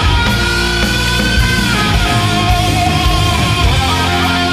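Background rock music with electric guitar.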